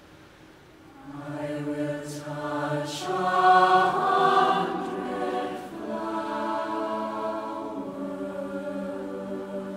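Mixed youth choir singing in harmony: after a near pause in the first second the voices come in, swell to their loudest around the middle, then hold sustained chords.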